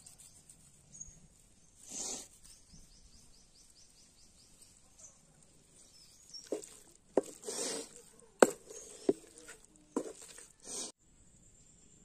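Wooden spatula stirring pepper chicken in a steel kadai: short scrapes and several sharp knocks against the pan, clustered in the second half.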